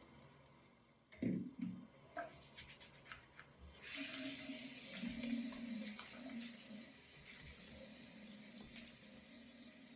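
A few short knocks, then a bathroom sink faucet is turned on about four seconds in. Water runs steadily over a sneaker being rinsed in the basin.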